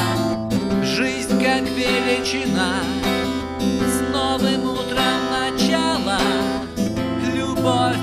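Background music: a song with strummed acoustic guitar and a singing voice.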